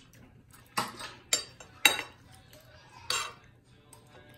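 Metal spoon and fork clinking and scraping against a ceramic plate while scooping food, four short sharp clinks.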